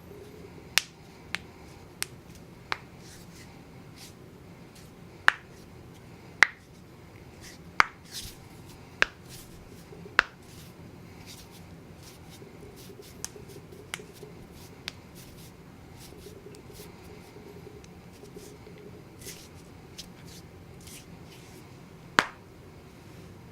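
Knuckles cracking: a string of sharp, single pops at irregular intervals, most of them in the first ten seconds, a few fainter ones after, and one more loud pop near the end.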